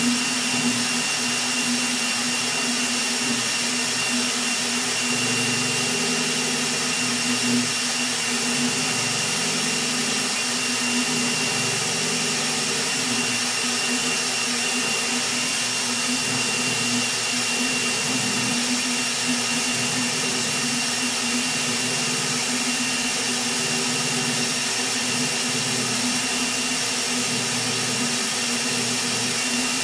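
Rat Rig V-Core 3 3D printer printing at high speed: its cooling fans give a steady high whine, and the stepper motors buzz in shifting tones as the print head moves rapidly back and forth.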